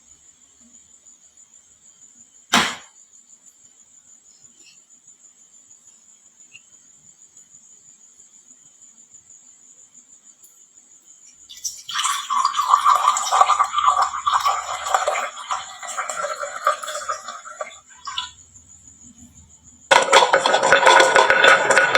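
Marbles clattering down a wooden marble-run slope: one sharp knock about two and a half seconds in, then a dense run of clicks and rattles for about six seconds past the middle. A steady faint high whine sits under the quieter first half, and a louder dense sound starts near the end.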